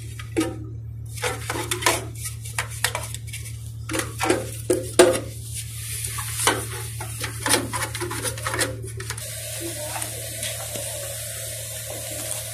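Irregular sharp knocks and clatter, hard objects striking with a metallic ring. From about nine seconds in, the knocks give way to a steady mechanical hum with a held tone.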